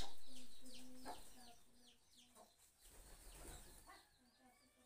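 Birds calling around a flock of feeding rock pigeons: short high chirps that drop in pitch, repeating every half second or so, over a low, broken cooing in short notes.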